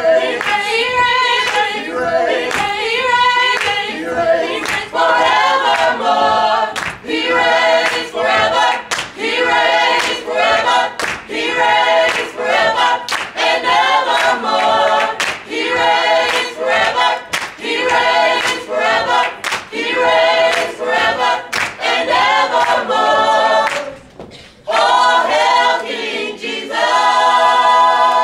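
A cappella gospel group of mixed male and female voices singing in close harmony, with hand claps keeping the beat. The singing breaks off briefly about four seconds before the end, then comes back on a held chord.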